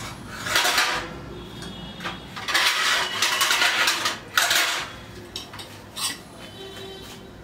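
Metal dishes and utensils clattering and clinking as they are handled at a wall-mounted dish rack, in a few bursts over the first four and a half seconds, then quieter.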